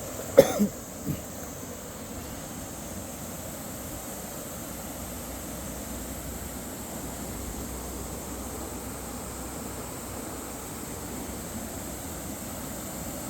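Steady rushing of a mountain stream, an even hiss of flowing water with no rhythm. Three short knocks sound close together about half a second to a second in.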